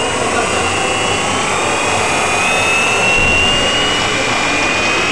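Electric bike's motor and main reduction gears spinning fast: a loud, steady whir with high gear whine that rises slowly in pitch.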